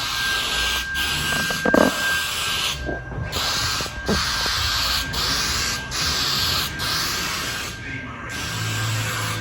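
Paint spraying onto a car body: a steady hiss laid down in repeated passes of a second or two, with short breaks between them as the trigger is released. A faint steady high whine runs underneath.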